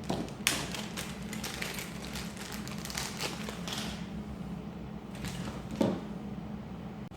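Small plastic items handled by hand: scattered light taps and clicks, with a sharper knock about half a second in and another near six seconds, over a steady low hum.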